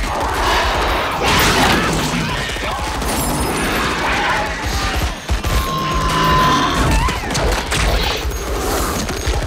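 Film battle sound effects: sustained automatic rifle fire from soldiers' assault rifles, with a steady rattle of shots.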